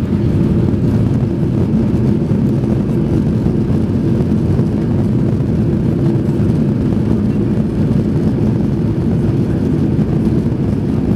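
Steady, loud roar inside the cabin of a Boeing 737-800 on its landing roll: the CFM56 engines together with the wheels rumbling along the runway at speed.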